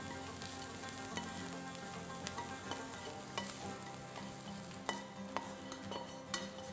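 Chopped onion sizzling in clarified butter in a frying pan, with a utensil scraping and clicking against the pan now and then as the onion is worked out of it.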